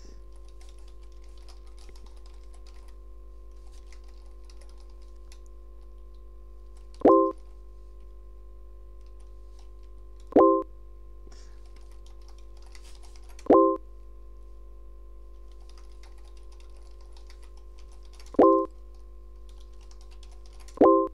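Computer keyboard typing in soft, scattered bursts. Five short, loud electronic blips from a web chat's message alert, one each time a message is sent or arrives. A steady low hum runs underneath.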